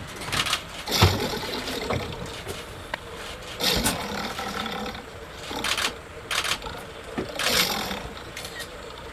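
A lion roaring in a series of short bursts, about six over the span, with gaps between them.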